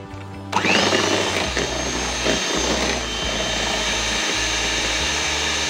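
Electric hand mixer switched on about half a second in, its motor whine rising quickly to speed, then running steadily as its beaters whip mashed banana and oil; it stops suddenly near the end.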